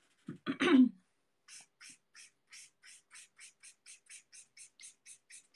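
Alcohol-ink marker colouring in with quick back-and-forth strokes, its tip scratching softly across the paper about four times a second, starting about a second and a half in.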